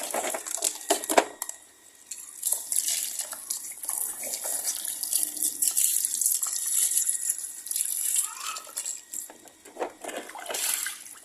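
Water splashing and trickling over a toy tow truck as it is washed, in uneven spurts with many small clicks and knocks.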